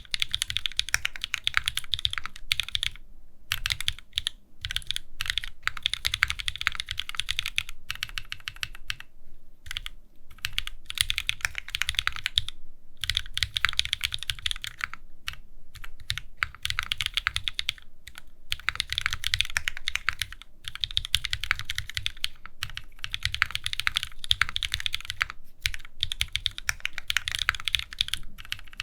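Wilba.Tech Salvation custom mechanical keyboard, with a spring leaf mount in a tray case, being typed on fast and continuously: dense keystroke clacks with brief pauses every few seconds.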